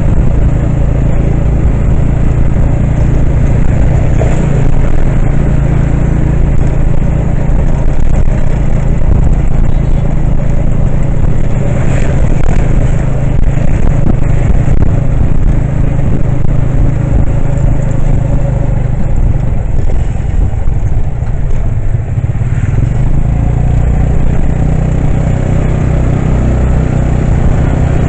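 A motor vehicle's engine running steadily with road and traffic noise, heard from on board while riding along.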